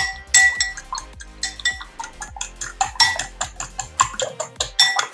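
Metal utensil beating egg and milk in a glass bowl: quick, uneven clinks of metal against glass, several a second, each with a short ring.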